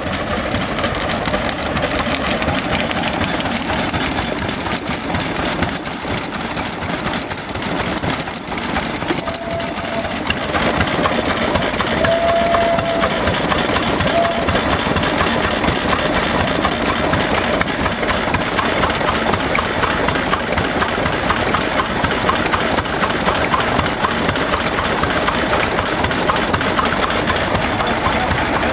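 Several small vintage stationary engines running at once, a steady mix of overlapping engine beats and mechanical clatter.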